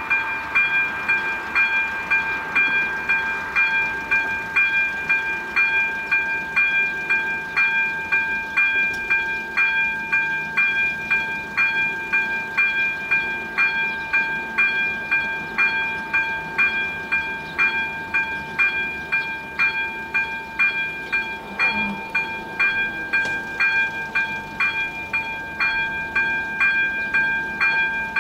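Czech level crossing's electronic warning bell on an AŽD 97 signal, ringing steadily at about one and a half strokes a second: the crossing is closed for an approaching train.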